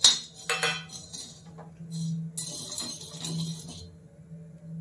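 Steel spoon clinking and scraping on a dry tawa while stirring whole spices (coriander and sesame seeds) as they dry-roast, the seeds rattling over the pan. A sharp clank at the start, a few knocks in the first second, then spells of scraping, over a faint steady hum.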